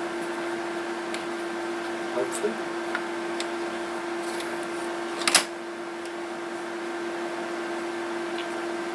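Faint clicks and handling noises from hands working inside an opened Aiwa boombox chassis, over a steady hum. About five seconds in there is one short, louder burst of noise.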